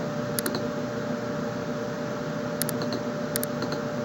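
Computer mouse clicking: three quick double clicks, about half a second in and twice in the last half, over a steady hiss with a constant hum tone.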